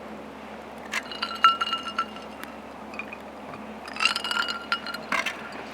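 Clinking with a ringing tone, like a glass or cup being struck, in two bursts of about a second each: one a second in and one about four seconds in. A single sharper knock follows near the end.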